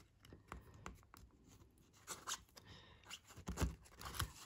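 Faint handling noises: soft scratches and small clicks as a plastic plant label is handled and pushed into a small plastic pot of sphagnum moss, with a couple of duller knocks after the middle.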